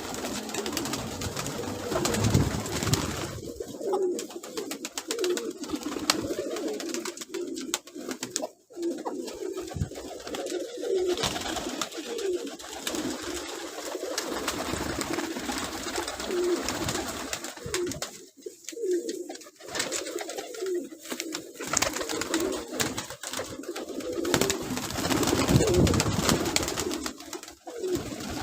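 Domestic pigeons cooing repeatedly, many short coos overlapping, with scattered clicks and taps among them.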